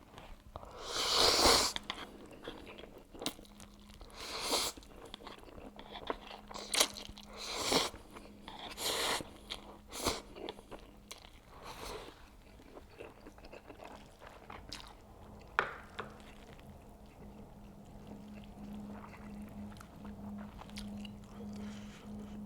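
A person eating instant stir-fried noodles (Buldak and Jjapaghetti) close to the microphone: a string of loud slurps and bites, then quieter chewing in the second half.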